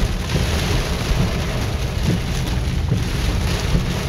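Heavy rain pouring down on a car's roof and windshield, heard from inside the cabin as a steady dense hiss with a low rumble underneath.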